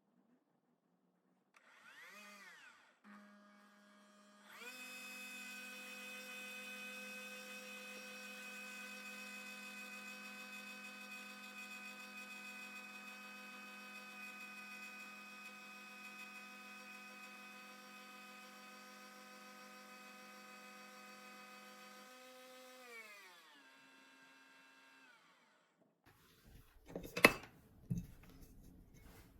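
Electric kitchen appliance motor whirring up briefly, then running at a steady pitch for about eighteen seconds before winding down with a falling pitch. A couple of sharp clicks near the end.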